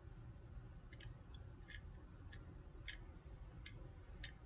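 Several faint plastic clicks from the button of a Kamen Rider Ex-Aid Mighty Action X game cartridge toy being pressed over and over. The toy gives none of its electronic sounds, which the owner hopes is only flat batteries.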